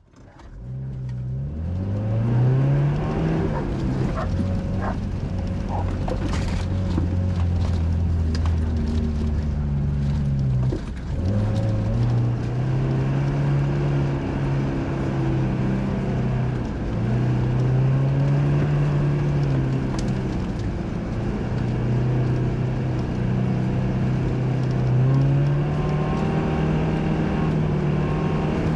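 A Suzuki off-road SUV's engine pulling on a trail, its pitch climbing as it accelerates and dropping back sharply every few seconds as the revs fall, with a few knocks about four to six seconds in.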